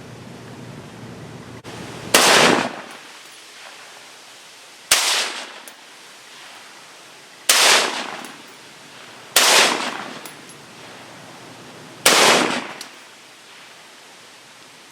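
AR-15 rifle with a .223 Wylde upper firing 5.56 rounds, five single shots a couple of seconds apart, each with a short echo.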